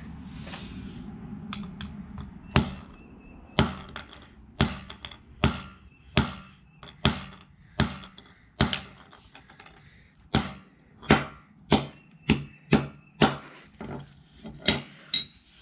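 A steel claw hammer striking a small plastic Bluetooth speaker on a concrete floor, smashing it. There are about twenty sharp blows, roughly one or two a second, beginning about two and a half seconds in, with a short pause a little past halfway.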